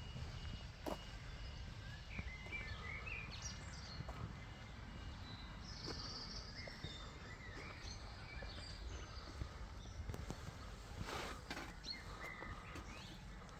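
Outdoor background noise: a low steady rumble with a few faint bird chirps scattered through it.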